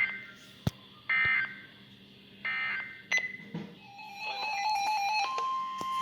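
NOAA weather radios' EAS data tones: three short warbling bursts about a second apart, marking the end of one alert, with a sharp click after the first. Then several weather radios sound their alarms together as a new warning comes in: overlapping electronic beeping, and a steady weather-radio alert tone starting about five seconds in.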